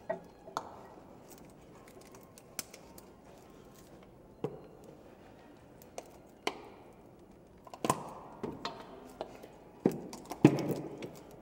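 Sporadic clicks and knocks as a green plastic pneumatic CV-joint boot fitting tool and its air hose are handled and worked against the drive shaft. The knocks come closer together and louder near the end.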